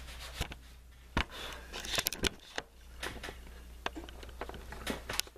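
Irregular wooden clicks and knocks, about nine of them, as cedar planking pieces are handled and test-fitted against a wooden canoe hull, over a steady low hum.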